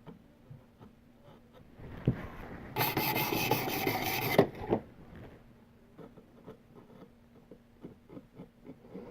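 A sharpening stone rubbing along a steel knife edge for about a second and a half, then a string of faint small ticks as the edge is felt, catching on the burr that the sharpening has raised.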